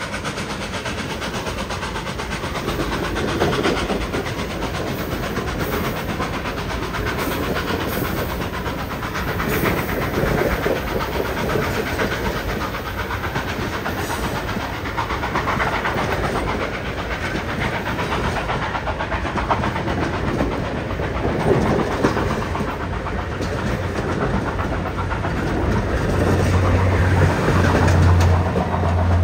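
Passenger coaches of a steam excursion train rolling slowly past, their wheels clacking and rumbling over the rail. Near the end a steady low hum sets in as the train's generator car passes.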